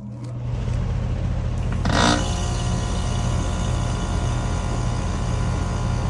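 A 3-ton central air conditioner's compressor starting through an ICM870-16A soft start. Its low hum swells over about a second, then settles into a steady run, with a short louder rush about two seconds in. The start succeeds on a portable generator, drawing 42 amps at startup.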